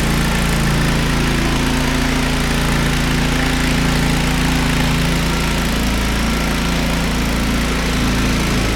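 Petrol-engined diamond floor grinder running steadily at an even engine speed.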